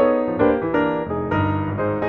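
Background piano music, with notes and chords struck every few tenths of a second.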